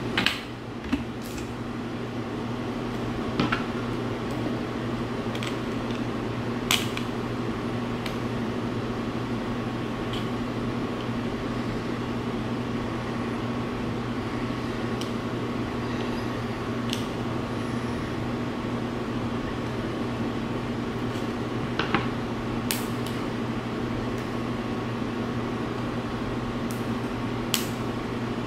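Steady mechanical hum of a room appliance, with a few sharp clicks and taps as plastic wrapping and a metal fork are handled.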